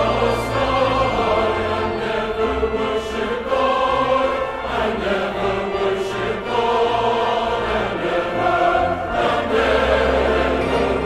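Choral music: a choir singing long held notes over a low bass.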